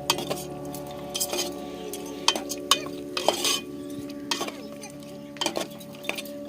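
Chicken being stirred in a frying pan with a utensil: repeated sharp clinks and scrapes against the pan over a light sizzle.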